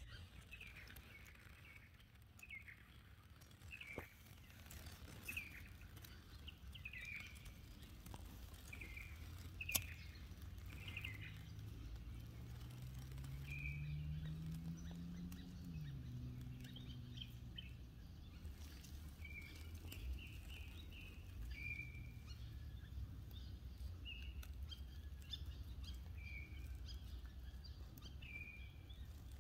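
Outdoor bush ambience: a bird giving short chirping calls over and over, about one a second, above a steady low rumble. Around the middle a low distant engine-like hum rises in pitch and then drops away, and there are a couple of sharp clicks.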